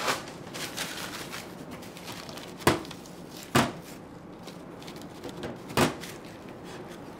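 Kitchen utensils and crockery handled on a worktop: soft rustling and scraping early on, then three sharp knocks, the second close after the first and the third about two seconds later.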